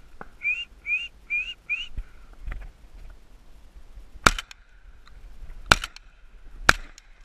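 Three shotgun shots, about a second apart in the second half, fired at passing thrushes. They are preceded by four short rising whistles in quick succession.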